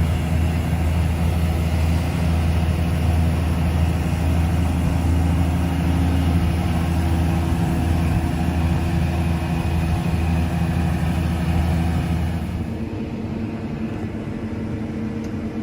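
Combine harvester running steadily with a deep, even engine hum. About three quarters of the way through, the sound changes: it loses its hiss and becomes quieter and duller.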